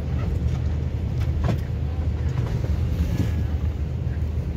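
Steady low rumble of an airliner cabin's air-conditioning and ventilation, with a few faint knocks.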